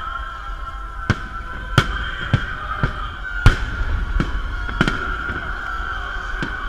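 Festive fireworks salute: about eight sharp bangs of shells bursting at irregular intervals, the loudest about three and a half seconds in, over a low rumble, with music playing underneath.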